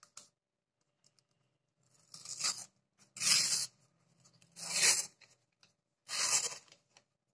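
Paper cupcake liner being torn and peeled away from a set dark chocolate cup: four short rips, the first about two seconds in, roughly a second apart.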